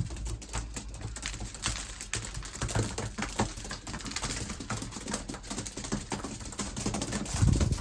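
Racing pigeons pecking grain from a feed tray: a rapid, irregular clatter of small clicks. A low thump comes near the end.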